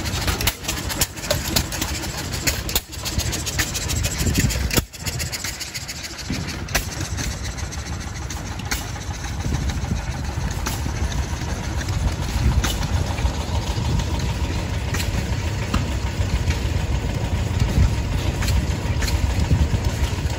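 Several antique stationary gas engines running together: a steady low chugging, with sharp exhaust pops at uneven intervals throughout.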